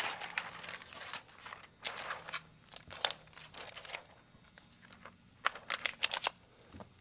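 Crinkling handling noise with scattered light sharp clicks, thickest in a quick cluster about five to six seconds in.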